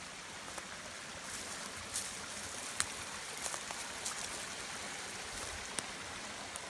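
Small creek running over rocks, a steady rush of water. A few short sharp clicks come over it, the loudest a little under three seconds in.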